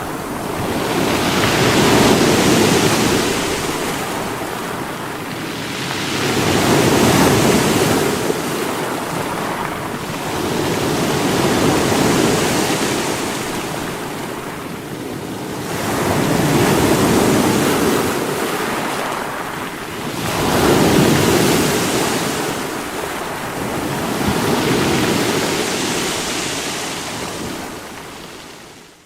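Sea waves breaking against rocks, a continuous wash of surf that swells and recedes with each wave, about every four to five seconds. The sound dips away sharply at the very end.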